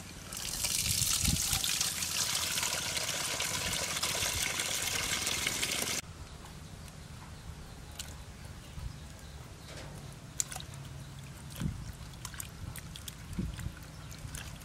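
Water running from a plastic barrel's spigot into a stainless steel bowl for about six seconds, then cutting off suddenly as the tap is shut. After that, quiet splashes and small clicks as leafy greens are swished by hand in the water.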